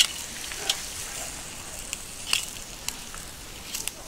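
Salted amago sizzling on a wire grill over glowing coals, a steady hiss broken by sharp clicks and crackles. The loudest click comes right at the start, with another strong one about two seconds in.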